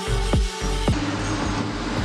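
Electronic background music: a driving kick-drum beat of about two thumps a second that drops out about a second in, leaving sustained synth tones.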